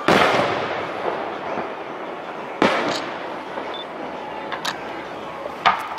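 Aerial firework shells bursting in a display. The loudest bang comes right at the start and fades over about a second, a second strong bang follows about two and a half seconds in, and smaller reports come after it, one near the end.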